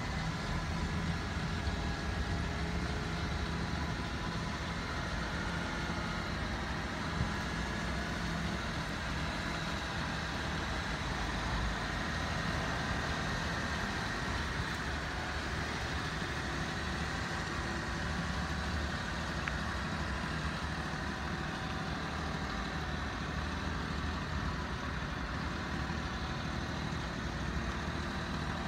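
Mitsubishi Minicab kei truck's small three-cylinder engine idling steadily.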